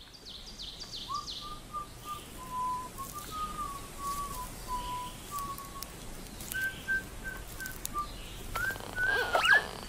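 A person whistling a slow tune in held, steady notes, with a few bird chirps at the very start. Near the end the whistling breaks into a quick wavering warble.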